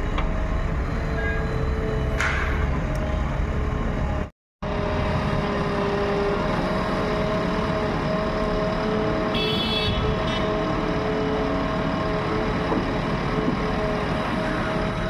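JCB 3DX backhoe loader's diesel engine running steadily while the backhoe arm digs and lifts soil, with a steady hum from the machine. A short horn toot sounds about halfway through, and the sound drops out for a moment about four seconds in.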